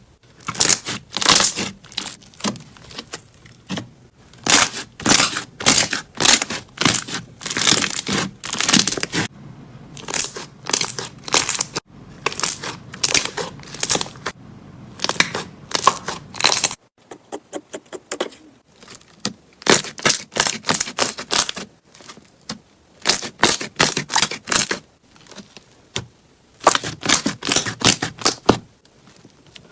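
Slime being pressed and squeezed by hand, popping its trapped air bubbles in rapid crackling bursts with short pauses between.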